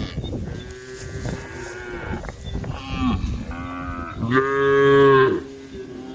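Several cows mooing one after another, their calls overlapping, as they call to the herd. The loudest is one long moo about four and a half seconds in.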